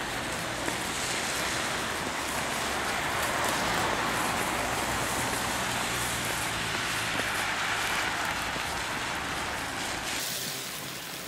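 Traffic on a rain-soaked road: tyre hiss on wet asphalt swelling up over a few seconds and falling away near the end, over a faint low engine hum and rain.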